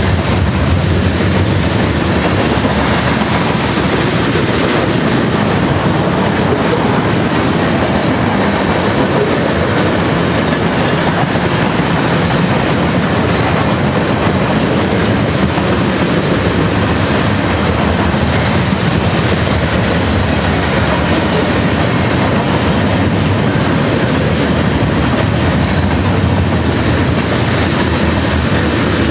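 Freight cars of a mixed freight train rolling past, their steel wheels clattering over the rail in a loud, steady rumble with a constant stream of clicks.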